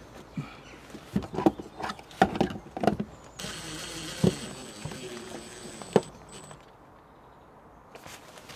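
Several sharp knocks of handling, then a cordless drill-driver running for about two and a half seconds, driving a screw into a wooden wall panel, stopping with a sharp knock. A small click near the end.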